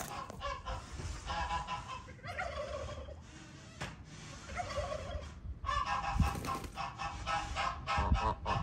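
Domestic geese calling in runs of quick, repeated honks, louder in the second half.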